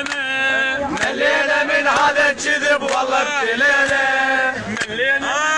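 A man singing in a chanting style, holding long melodic notes that bend up and down.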